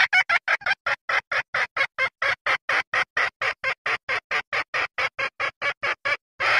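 Female junglefowl clucking in a fast, even series of short calls, about five a second, breaking off briefly near the end before one more call. This is the hen's mating call, used as a hunting lure to draw in cocks.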